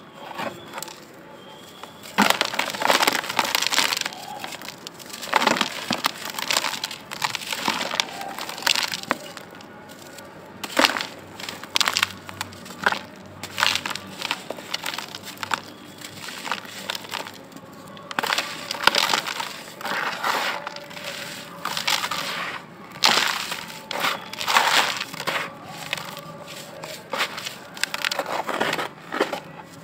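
Bare hands crushing and crumbling dry, powdery grey blocks in a plastic bucket: gritty crunching and grinding in irregular bursts with short pauses, as grit and powder pour down.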